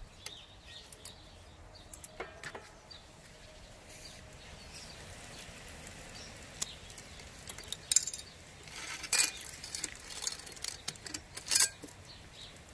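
E-bike chain clinking and rattling as it is handled loose after its quick link has been opened, in scattered sharp metal clinks, with a few louder clusters, the loudest near the end.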